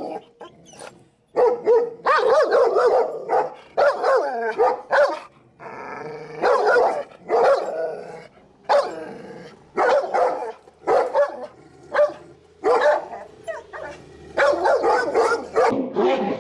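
A black Labrador and a Maremma sheepdog barking aggressively at each other, in loud repeated barks about once a second with short pauses between bouts; the two dogs have become hostile to each other and fight.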